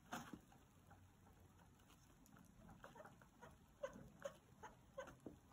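Faint scratching and light ticks of a cotton swab rubbed over a cassette deck's tape heads. There is a short cluster at the start, then a run of small ticks through the second half.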